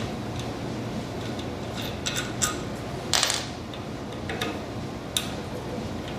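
Hand tools and small metal parts of a heater pump clicking and clinking as they are handled, half a dozen light knocks, the loudest about three seconds in, over a steady low hum.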